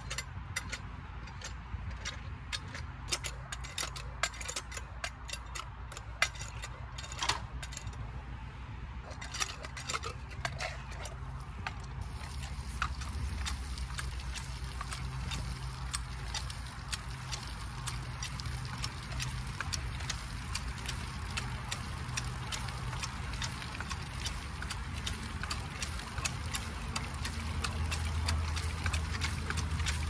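Red hand pitcher pump on a freshly driven sandpoint well being worked by its handle, with repeated metallic clanks and knocks from the handle and plunger. About twelve seconds in, water starts gushing from the spout and splashing onto the ground under the clanking: the pump is now drawing water up from the well.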